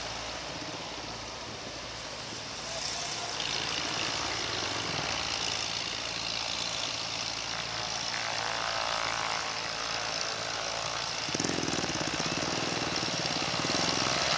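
Cessna Citation II business jet's twin turbofans heard at a distance as it climbs away after takeoff: a steady jet hiss and rumble. About three-quarters of the way in the noise suddenly gets louder and rougher.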